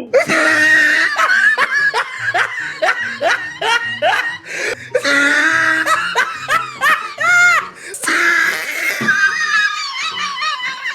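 Hearty laughter in many short bursts, loud throughout.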